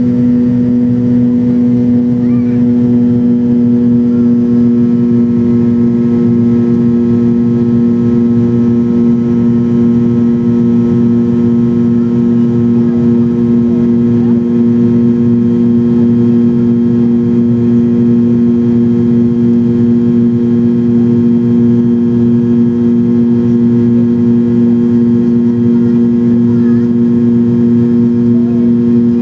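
Cabin noise of a McDonnell Douglas MD-87 climbing after takeoff: its rear-mounted Pratt & Whitney JT8D turbofans drone loud and steady, a strong low hum with a few higher steady tones over a rushing noise.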